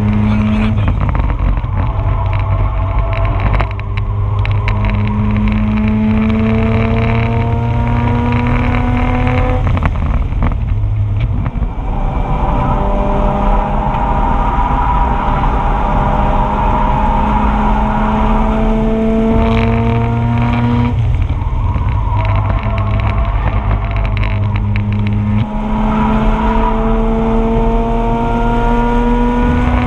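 Mazda RX-8's two-rotor rotary engine pulling hard on track, heard from on board. Its pitch climbs steadily through each gear and drops sharply at each upshift, several times over.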